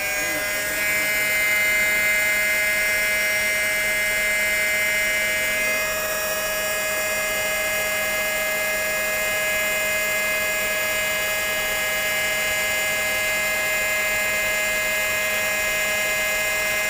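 Armstrong VFD-driven pump motor running with a steady whine of several high tones, the abnormal noise from the pump motor. One of the upper tones fades about six seconds in.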